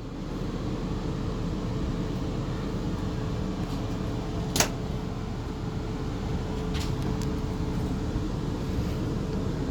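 Inside a South Western Railway Class 450 Desiro electric multiple unit: a steady rumble and hum with a thin steady tone. A single sharp click or knock sounds about halfway through, with a couple of fainter clicks later.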